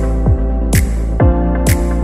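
Electronic background music with a steady beat: a kick drum about twice a second and a clap or snare on every other beat, over held synth chords.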